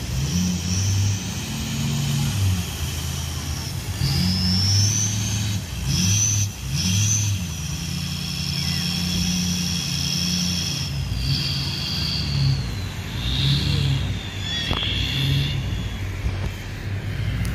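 Lifted Ford Super Duty pickup's engine revving up and easing off again and again as the truck works through soft beach sand, with a high whine rising and falling above it.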